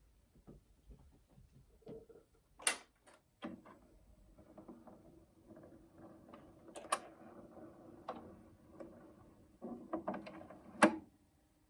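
Scattered clicks and light knocks of an Audio-Technica AT-LP3 turntable being handled and set up to play a record, with sharper clicks about a third of the way in, past the middle and just before the end.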